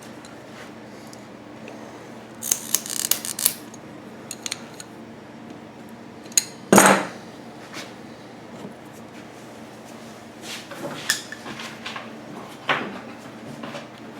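Small parts and hand tools being handled while fitting hose clamps onto fuel hose: scattered clicks and clatter, a quick run of clicks about two and a half seconds in and one louder knock about seven seconds in.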